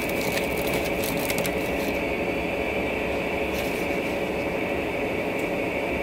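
Aluminium foil wrapper crinkling in short crackly bursts during the first two seconds and once more briefly after three and a half seconds, over a steady mechanical drone with a constant hum.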